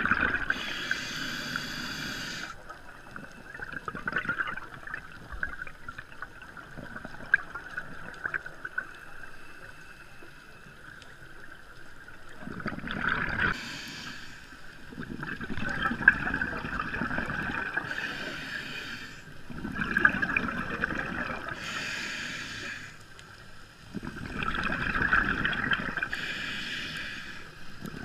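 Scuba diver's exhaled bubbles gurgling underwater in bursts every few seconds, with a long quieter stretch early on.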